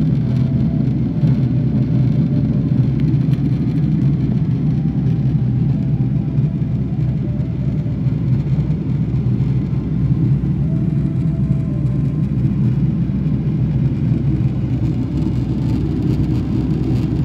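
Steady cabin noise inside a Boeing 777-300ER in flight: an even low rumble of engines and airflow, with faint brief tones now and then.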